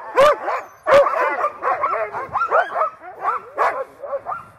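A group of sled dogs barking and yelping, many calls overlapping one another, with two sharp barks stand out in the first second or so.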